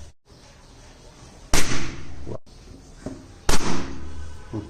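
Two balloons bursting about two seconds apart, each a single sharp bang with a short fading tail.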